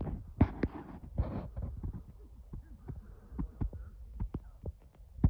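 Irregular crackling and snapping of dry brush and twigs close to the microphone, with low thumps mixed in.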